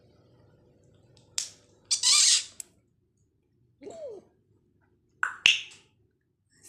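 African grey parrot making a string of short mimicked sounds: a click, a loud harsh noisy call about two seconds in, a brief falling note around four seconds, and a higher-pitched call with a sharp click just after five seconds.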